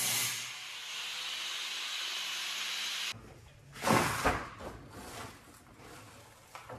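Angle grinder cutting through a steel wall panel, a steady hissing grind that cuts off suddenly about three seconds in. A few loud knocks and rattles follow as the cut sheet-metal panel is pushed loose.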